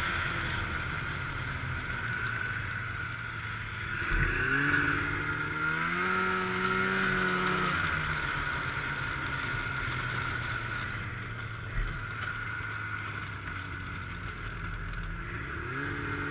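Snowmobile engine running along a trail, with wind noise over a helmet-mounted camera. The engine pitch climbs about four seconds in, holds, drops again after about eight seconds, and climbs once more near the end.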